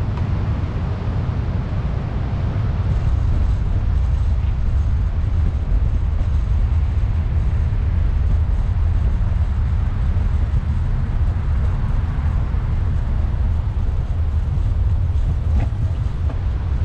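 Wind buffeting an action camera's microphone on a moving bicycle: a steady, loud low rumble.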